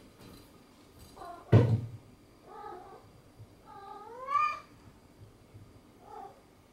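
A domestic cat meowing four times in short calls, the longest and loudest one rising in pitch about four seconds in. A sharp thump about a second and a half in is the loudest sound.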